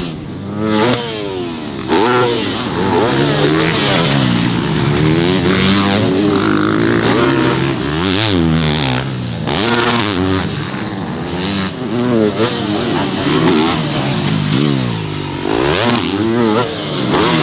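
Several dirt bike engines revving, their pitch rising and falling over and over as the throttle is opened and shut, with the bikes' sounds overlapping.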